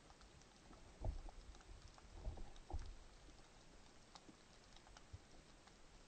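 Faint underwater ambience: sparse crackling clicks over a low hiss, with a few dull low thumps between about one and three seconds in.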